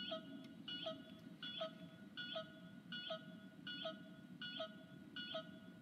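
Bandai Proplica Moon Stick toy beeping in its monster detector mode: a short electronic beep repeats evenly about every three-quarters of a second, the toy's signal for tracking a nearby monster.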